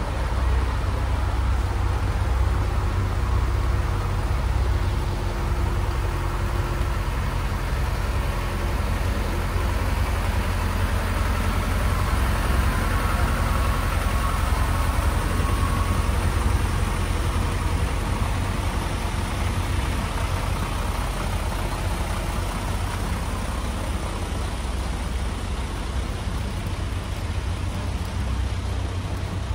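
Diesel engines of a KiHa 185-series sightseeing railcar idling while the train stands, a steady low drone.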